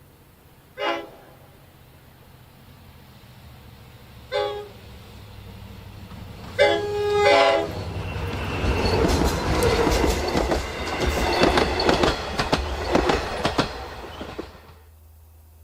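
Long Island Rail Road DE/DM30AC diesel locomotive's air horn sounding a chord in four blasts: two short ones a few seconds apart, then two close together. The train then passes with its wheels clattering over the rail joints, dying away near the end.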